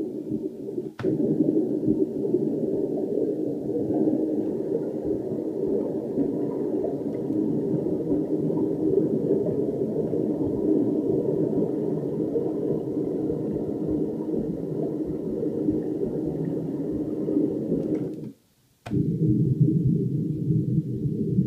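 Sampled swimming-water recording from a sound font, played on a Raspberry Pi 3 synthesizer running Fluidsynth: a muffled, steady sloshing held as one long keyboard note. It cuts off about eighteen seconds in, and after a short break a second, duller and lower-pitched note of the same sample starts.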